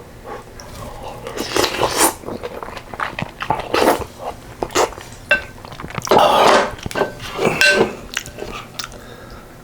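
Close-miked eating: a person chewing and slurping yukgaejang with rice soaked in the soup and fresh geotjeori kimchi, in irregular bursts with a longer slurp about six seconds in and a few light clinks.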